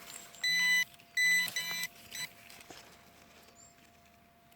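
Minelab X-Terra 705 metal detector sounding three short, steady signal tones in quick succession as the coil passes over a buried metal target, which the detectorist thinks could be a hammered coin.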